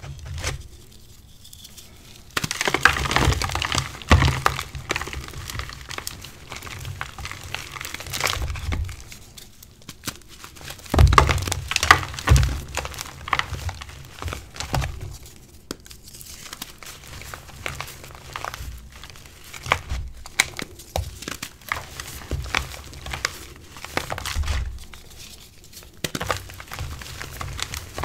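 Hands crushing reformed gym chalk blocks and squeezing the crumbled chalk powder: irregular crunching and crumbling with soft powdery squishes. The loudest crunches come a few seconds in and again about eleven seconds in.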